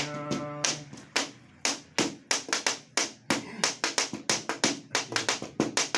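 Hand percussion keeping a quick rhythm for a Punjabi folk song: sharp taps and claps, about four or five a second. A sung note dies away just under a second in.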